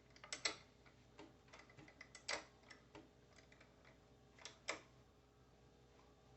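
Faint, irregular metallic clicks of a 10 mm wrench working a bolt tight, several of them in close pairs, stopping about five seconds in.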